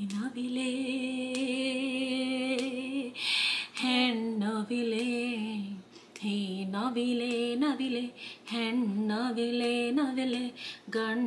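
A woman singing a lullaby tune to the baby in long, held notes with a slight waver, broken by short pauses.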